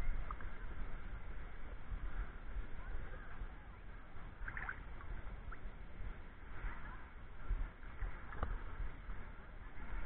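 Muffled water lapping and sloshing against a camera held at the lagoon surface, with a low rumble and a few faint short chirps around the middle and near the end.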